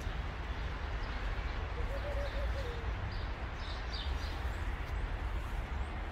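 Outdoor street ambience: a steady low rumble with a few faint bird chirps, and a brief faint wavering call a couple of seconds in.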